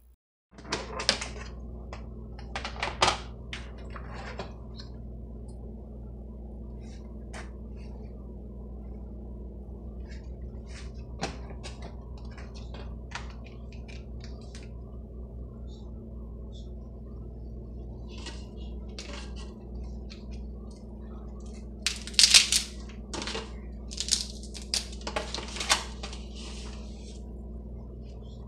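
A plate and pieces of leftover crab being set out on a stovetop: scattered clinks and knocks, with clusters of louder clinks about a second in, around three seconds in and near the end. A steady low hum runs underneath.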